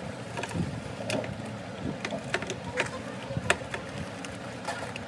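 Scattered short clicks and rustles of handling, over a steady background noise with indistinct voices.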